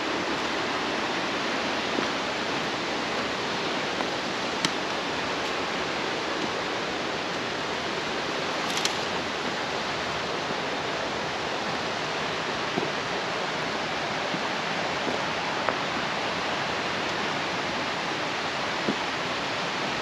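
Stream rushing steadily, an even hiss of running water, with a few scattered sharp clicks.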